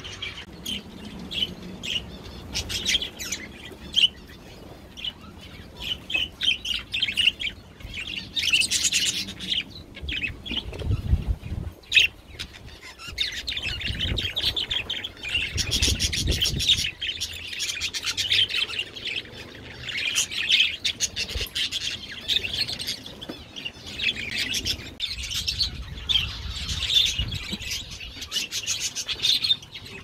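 Aviary birds chirping and calling: Gouldian finches at first, then a flock of budgerigars chattering busily through the second half. A low rumble comes twice, about a third of the way in and about halfway, with a sharp click between them.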